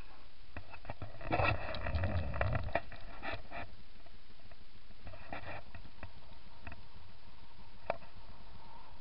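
Knocks and rattles of gear on the deck of a small sailboat, a cluster of them about a second in and a shorter one around five seconds, then a single click near the end, over a steady hiss.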